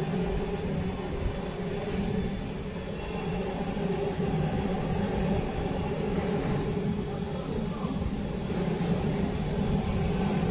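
Steady drone of running workshop machinery: an even hum with a few constant tones and a thin high whine, without rhythmic strikes.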